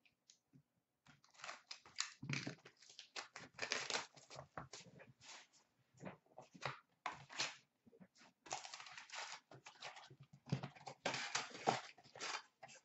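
Rustling, crinkling and tearing of card-box packaging and wrapped packs being handled as a box of 2016-17 Upper Deck Ice hockey cards is opened: a string of irregular crackles and rustles.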